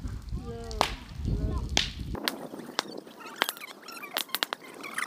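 Bonfire crackling, with sharp cracks and pops that come a few at a time at first and crowd together in the second half. Voices are heard over a low rumble during the first two seconds.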